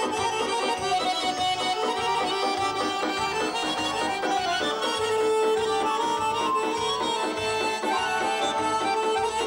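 Two Azerbaijani garmons (button accordions) playing a traditional folk melody together in held, shifting chords over a steady low pulsing beat.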